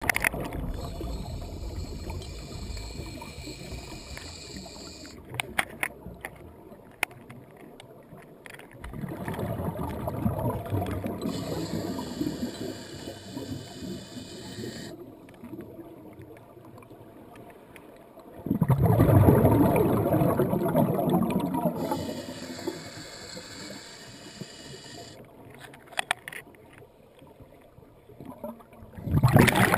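Underwater recording through a camera housing: a steady wash of water noise with a few bursts of bubbling, the loudest about two thirds of the way through, and a few sharp clicks.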